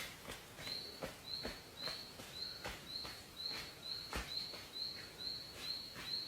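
A bird repeating one short, high note over and over, about twice a second, with irregular sharp clicks and knocks underneath.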